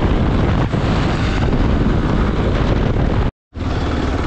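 Hero XPulse 200's single-cylinder engine running under way, mixed with heavy wind buffeting on the microphone. The sound cuts out briefly about three seconds in, then the engine carries on at a slower pace.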